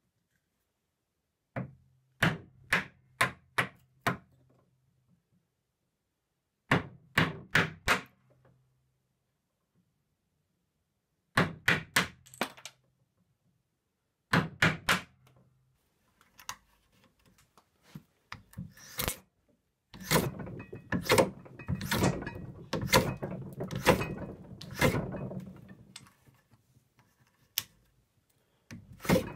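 A chisel struck to split thin pieces off a birch block: four bursts of three to five sharp knocks. Then, about twenty seconds in, a hand plane shaving a piece into a wedge in a jig, a run of quick strokes.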